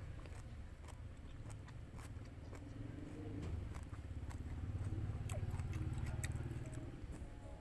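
Close-up biting and chewing of grilled skewered food pulled off a bamboo stick, with small wet mouth clicks. A low rumble swells from about three and a half seconds in and fades near the end.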